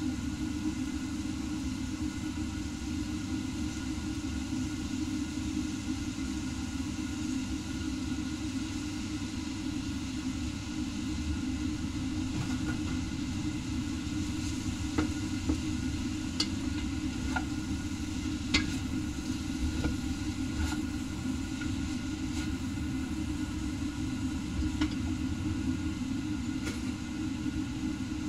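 A steady low rumble runs throughout, with a few light clinks and taps of cooking utensils against a metal wok scattered through the second half.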